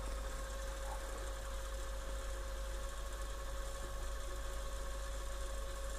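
Steady hum with a constant faint tone from the Technics SC-HD550 mini hi-fi, with no distinct events.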